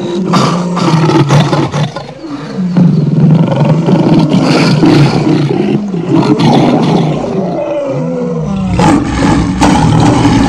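Lion roaring: a run of loud, deep calls, one after another, each rising and falling in pitch.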